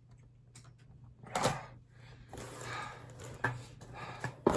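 Unboxed merchandise and its packaging being handled: rustling, with a louder rustle about a second and a half in and a few sharp clicks and knocks later on.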